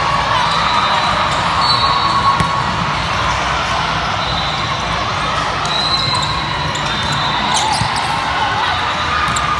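Echoing din of a busy volleyball tournament gym during a rally: volleyballs being hit and bouncing off the hardwood court, with scattered knocks and a cluster of sharp hits about eight seconds in, short high squeaks now and then, and a steady background of many voices in the large hall.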